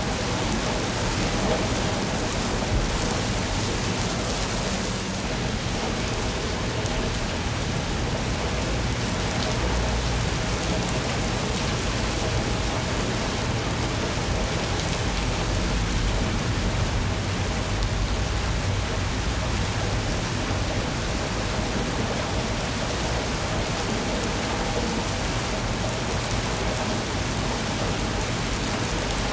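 Steady rain falling, an even hiss and patter, with a low rumble swelling now and then underneath.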